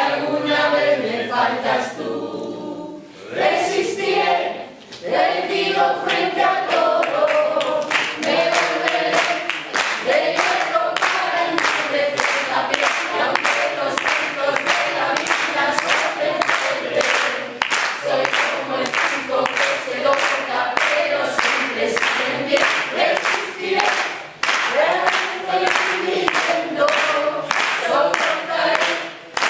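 A mixed group of men and women singing together unaccompanied. From several seconds in, steady hand clapping keeps the beat under the singing.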